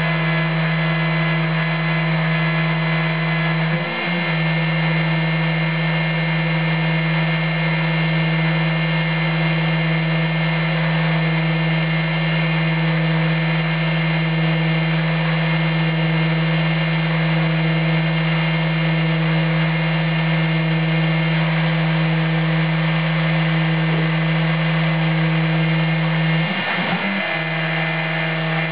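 Proxxon high-speed rotary tool running as the spindle of an Emco F1 CNC mill, its engraving bit cutting a copper-clad PCB: a steady whine, its pitch dipping briefly about four seconds in and again near the end.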